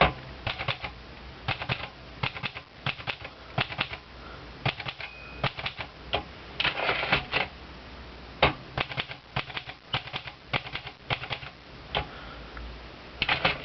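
Olivetti Lettera 32 manual portable typewriter being typed on key by key, its typebars striking in uneven single clicks and short runs. A brief ring about five seconds in is the margin bell.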